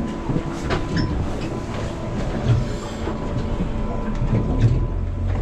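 Boat engine running at low speed, heard from inside the wheelhouse of an aluminum fishing boat: a steady rumble with scattered knocks and rattles from the hull and fittings.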